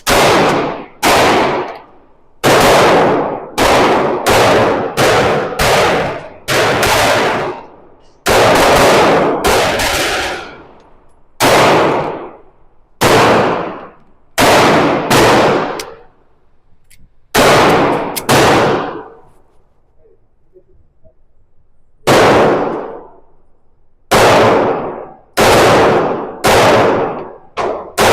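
Pistol shots fired in strings at an irregular pace, each with a short ringing tail. There are a couple of dozen shots, with a pause of about three seconds just past the middle.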